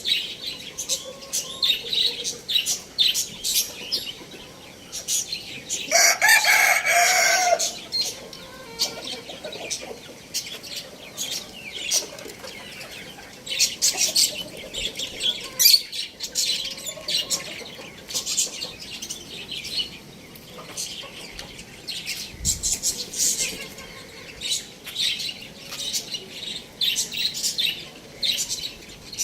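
Chickens with many short, sharp high chirps and clicks throughout, and one loud call from a chicken about six seconds in, lasting about a second and a half.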